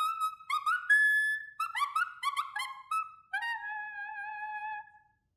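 Clarinet muted with a swab stuffed in it, played on the full B fingering, with only the voicing changing so that the tone pops between overtones: a quick run of short notes like a little tiny bugle. Near the end comes one longer, slightly wavering held note.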